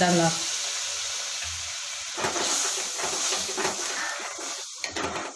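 Milk and masala sizzling in a hot kadhai, a steady hiss. From about two seconds in, a steel spoon stirs and scrapes against the pan.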